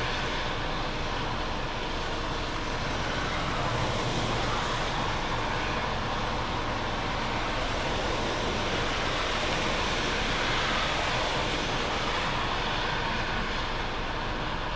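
Steady, even noise of jet aircraft engines at an airport, with no rise or fall.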